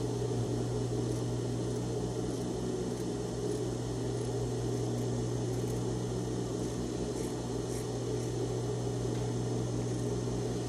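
Steady low electric motor hum with a whir, unchanging throughout.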